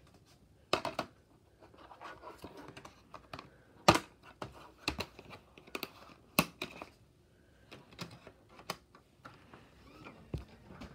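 Plastic DVD case being handled and opened, and the disc lifted off its centre hub: irregular sharp plastic clicks and snaps with a soft handling rustle between them.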